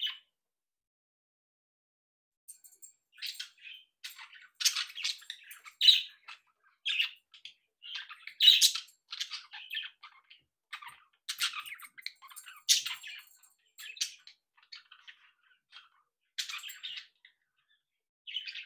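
Budgerigars chattering: one short chirp at the start, then after a pause of about two seconds a long run of quick, sharp chirps with brief gaps, and a last chirp near the end.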